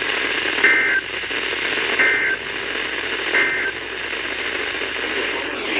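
Emergency Alert System (SAME) end-of-message data bursts received over a radio: three short, identical two-tone digital chirps about 1.4 s apart, over steady radio static hiss. They mark the end of a National Weather Service warning broadcast.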